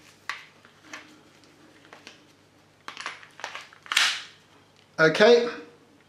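Plastic and metal clicks of a WE Big Bird gas blowback airsoft pistol being handled as its gas magazine is fitted into the grip: a few single clicks, a quick cluster of clicks, then a louder sliding clack about four seconds in as the magazine goes home.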